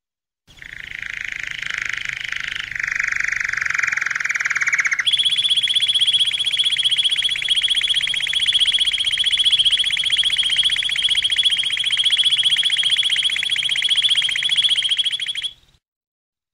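Domestic canary singing long, very fast rolling trills: a lower trill for about four seconds, then an abrupt change to a higher, steady trill held for about ten seconds before it stops suddenly.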